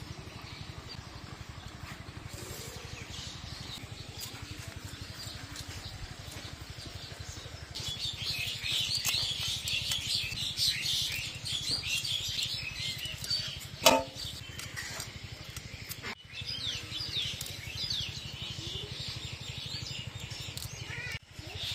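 Small fish being scaled and cut against a boti blade: a run of quick, scratchy scraping strokes in the middle, with one sharp click about two-thirds through. Birds chirp now and then.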